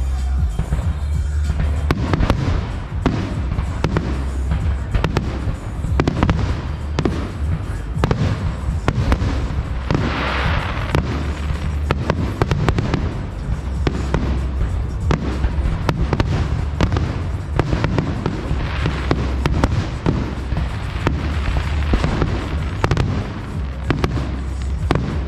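Aerial fireworks going off in rapid succession: a dense run of sharp bangs and booms, with a brief rush of hiss about ten seconds in.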